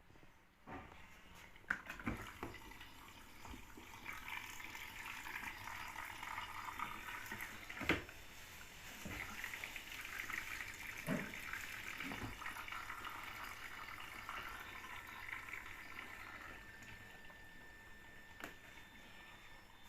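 Water running and splashing steadily, with a few sharp knocks and clatters, the loudest about eight seconds in.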